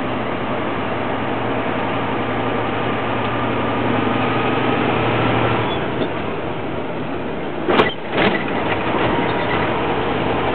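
A heavy vehicle's diesel engine running while driving, heard from inside the cab: a steady hum whose low note drops away a little before six seconds in. Two sharp knocks come about eight seconds in.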